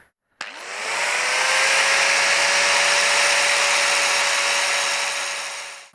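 Angle grinder spinning up about half a second in, its whine rising to a steady pitch, then grinding a metal nut to round it off to fit a tube. It stops suddenly near the end.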